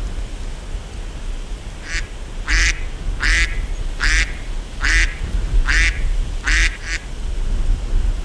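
Mallard duck quacking about seven times in an even series, roughly one quack every three-quarters of a second, starting about two seconds in. A steady low rumble runs underneath.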